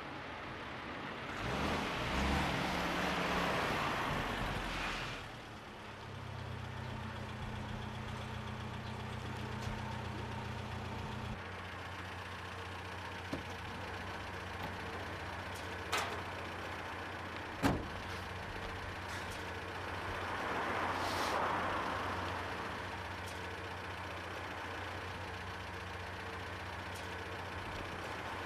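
A car passes, then a car engine idles steadily, its low hum shifting a little partway through. Two sharp knocks come near the middle, and another vehicle passes a few seconds later.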